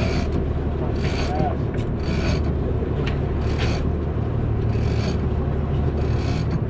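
Boat engine running steadily under short raspy bursts every second or so from a heavy fishing reel being worked against a hooked bluefin tuna.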